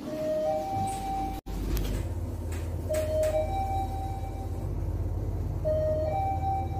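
Mitsubishi elevator chimes: three two-tone dings, each a short lower note stepping up to a longer, higher one, sounding near the start, about three seconds in, and near the end, over a steady low hum.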